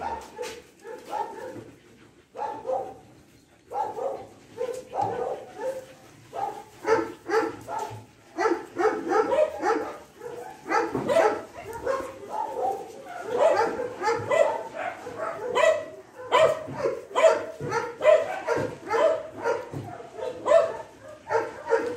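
Dogs barking and yipping over and over in short, quick calls, a few at first, then almost without a break from about eight seconds in.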